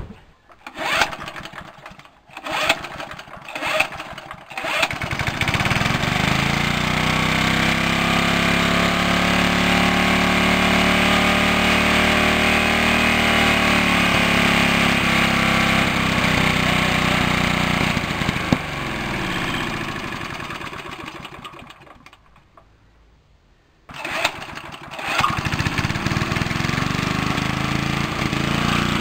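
A salvaged walk-behind petrol lawn mower engine, its carburettor and air filter uncleaned, pull-started: a few quick cord pulls, then it catches about five seconds in and runs steadily. Near the end it slows and stops, then restarts on another pull and runs again, sounding good enough to the owner that he reckons it will be a goer.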